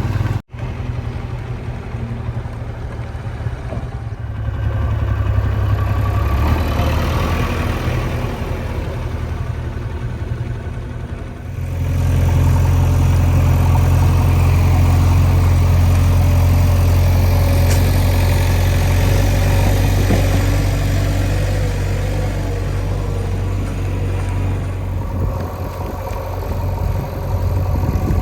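JCB 3DX backhoe loader's diesel engine running. It picks up a little about five seconds in, steps up to a louder, steady run about twelve seconds in, and eases off near the end.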